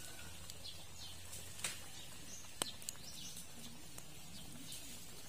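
Small birds chirping in short high calls, with a few sharp clicks, the loudest about halfway through, over a faint low hum.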